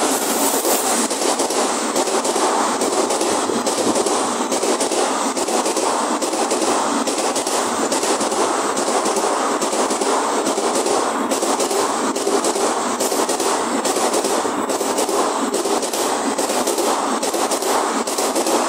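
Electric-hauled Indian Railways express train passing at speed alongside a station platform: a steady rush of wheels on rail, with a rapid, irregular run of sharp clacks as the bogies cross rail joints.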